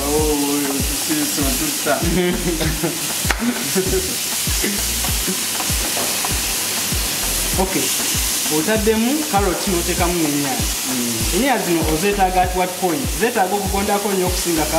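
Chopped tomatoes, bell peppers and onions sizzling in hot oil in a pan while being stirred with a spatula, the spatula scraping and knocking against the pan. A voice is heard in the background now and then.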